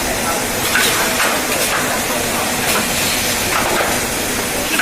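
Shrink-film bottle bundling machine running: a steady loud hiss with light clicks repeating through it.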